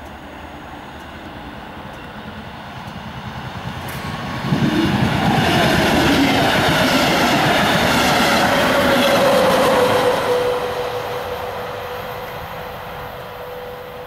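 A train passing close by: it grows louder, runs loud for about six seconds, then fades as it moves away, leaving a steady high tone.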